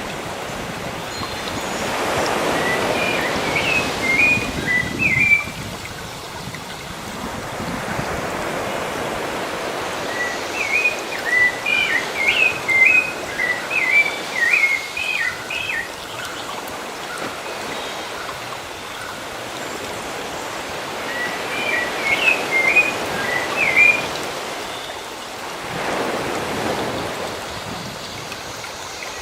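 Sea waves washing on a shore in slow swells, with a songbird singing three runs of quick, high chirping notes: briefly near the start, longer in the middle, and again near the end.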